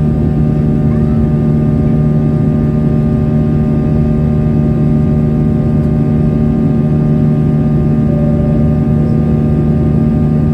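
Boeing 737-800's CFM56-7B turbofan engines at climb power, heard inside the cabin beside the engine: a loud, steady drone with a hum of several constant tones.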